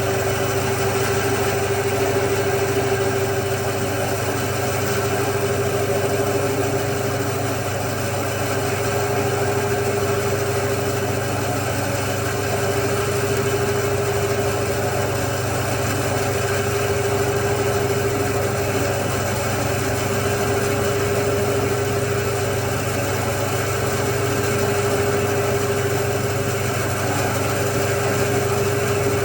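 Band saw running steadily with an unchanging hum.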